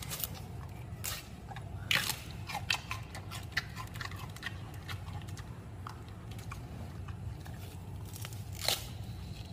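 Giant panda biting and chewing a bamboo shoot: irregular crisp crunches, the loudest about two seconds in and again near the end, over a low steady hum.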